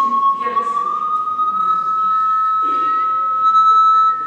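Pure tone from an audio frequency generator played through a speaker, gliding slowly up from about 1,000 Hz to about 1,300 Hz. It is part of a rising frequency sweep used to test the upper limit of hearing.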